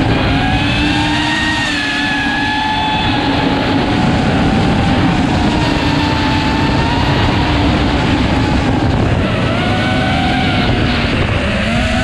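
FPV quadcopter's brushless motors and propellers whining in flight, their pitch rising and falling again and again with the throttle, over a steady rushing noise.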